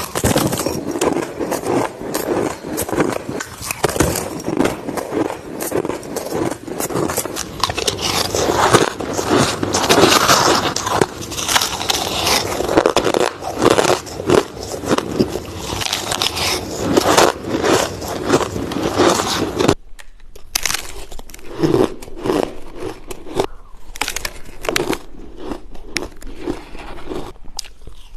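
Crushed ice being bitten and chewed close to the microphone: dense, irregular crunching and crackling, getting quieter about two-thirds of the way through.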